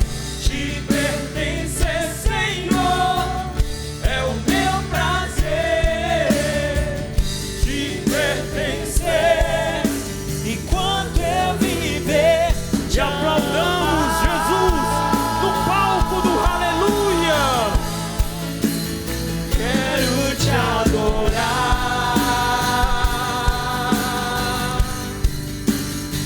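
Live Christian worship music: singing over a band with a steady drum beat, with long held sung notes in the second half.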